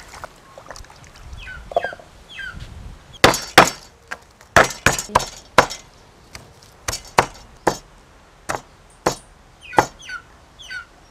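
Cleaver chopping lemongrass stalks and galangal on a thick wooden chopping block: about a dozen sharp, irregular chops starting about three seconds in, the first two the loudest.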